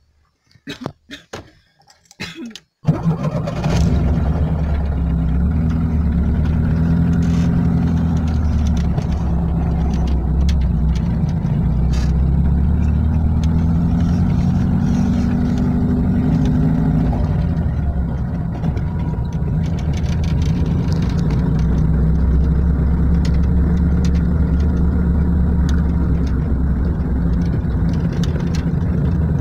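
A car engine being cranked in short bursts by the starter, catching about three seconds in and then running steadily as the car drives off.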